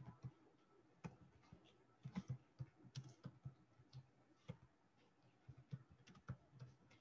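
Faint, irregular clicks of computer keyboard keys as a short phrase is typed.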